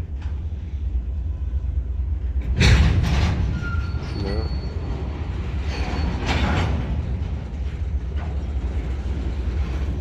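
Freight train moving slowly in a rail yard: a steady low rumble of the locomotive and rolling cars, broken by loud clanks about two and a half seconds in and again around six seconds.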